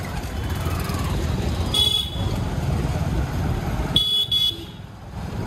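Busy city street traffic: a steady rumble of engines with two short, high-pitched horn toots about two seconds apart.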